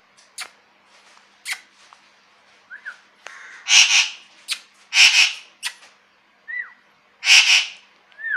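Pet parrot squawking: three loud, harsh screeches about a second or two apart, with short whistled chirps in between.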